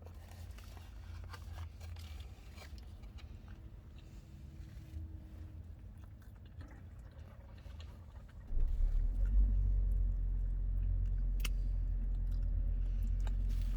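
A person chewing a Big Mac, with soft mouth clicks and rustles. About eight and a half seconds in, a steady low rumble sets in and carries on.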